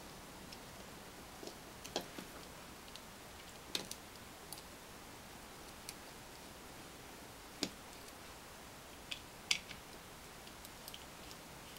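Scattered light clicks and ticks of a small screwdriver working the tiny screws in the plastic case of a digital tyre tread depth gauge, with the case handled between them. The clicks come irregularly, a few seconds apart, over a faint hiss.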